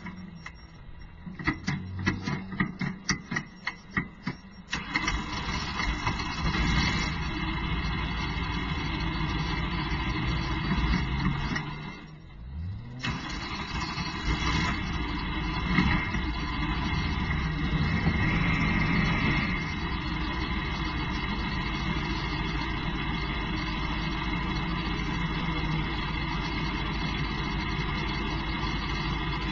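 Hansen GTR race car heard from inside the cockpit. For the first few seconds there is a quick series of sharp clicks and pops, then a steady engine drone with tyre and spray noise from the wet track. About twelve seconds in, the sound drops away briefly and a rising tone follows as the engine starts again, then it runs steadily.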